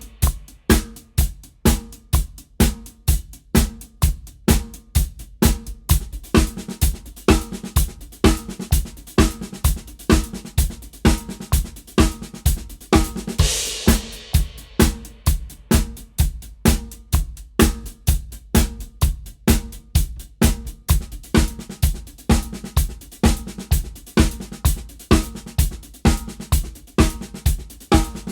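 Drum kit playing sixteenth-note paradiddle grooves around hi-hat, snare and bass drum, in a steady even pulse with one crash cymbal hit about halfway through.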